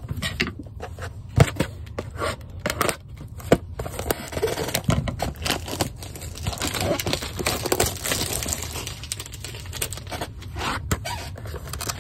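A 2024 Topps Baseball blaster box being torn open by hand: its wrapping crinkled and ripped and the cardboard flap pulled, with scrapes and sharp taps as the box is handled.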